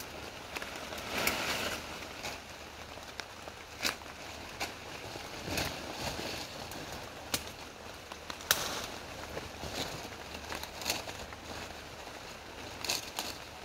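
Salal stems being picked and gathered by hand in wet undergrowth: leafy branches rustling, with irregular sharp snaps and cracks over a steady hiss of rain.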